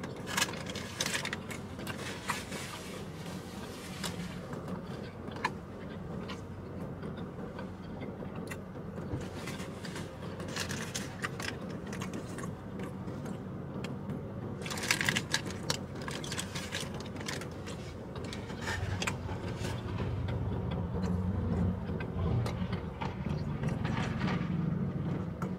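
Paper food wrappers crinkling and rustling in short bursts as a burrito and sandwich are handled, over a steady low hum inside a car's cabin.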